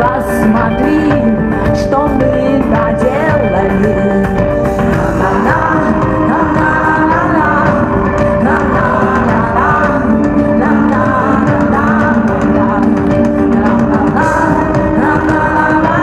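Live rock band playing a song, with keyboards, drums and guitar under a female lead vocal.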